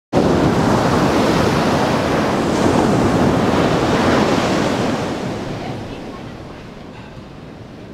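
Ocean surf: waves breaking and washing up a sand beach in a steady rushing hiss that fades away over the last few seconds.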